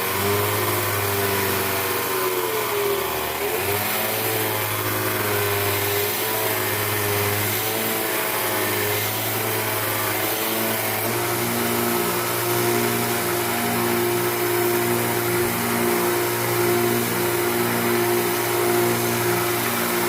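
Electric grinder motor running steadily while the steel blade is ground. Its pitch wavers and dips as the work is pressed on during the first half, then holds a steady hum.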